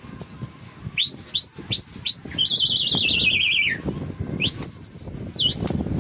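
Pigeon flyer whistling to the flock overhead: five short upward-sweeping whistles, then a warbling trill that slides down in pitch, then one long steady high whistle near the end. Under the whistles runs a rough flapping noise from cloth flags being waved.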